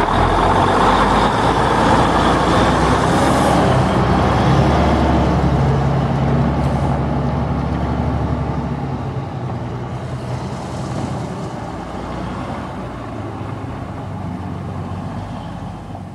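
M923 military cargo truck's inline-six diesel engine running as the truck drives away, its sound fading steadily.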